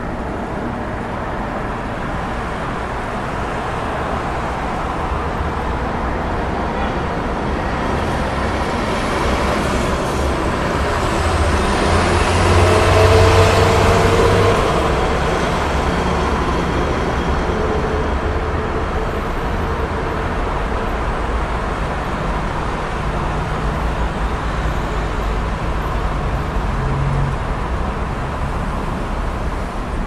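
Dense road traffic, a continuous wash of passing vehicles and tyre noise. It swells to its loudest about halfway through, with a low drone, then settles back.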